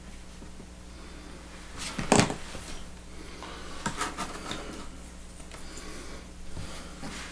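Small epoxy tubes and a mixing stick being handled and set down on a wooden workbench: one sharp knock about two seconds in, a cluster of lighter clicks and rustles around four seconds in, and a couple of soft taps near the end. A steady low hum runs underneath.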